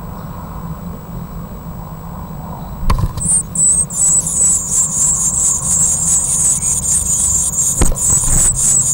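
Blue tit nestlings begging: a rapid chorus of thin, high-pitched calls that breaks in suddenly with a knock about three seconds in, after a low steady hum, with another knock near the end.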